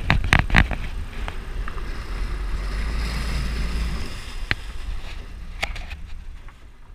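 Low rumble of a boat underway, its engine and the wind on the microphone, with a few sharp knocks on the deck, a cluster in the first second and two more later. The sound fades out near the end.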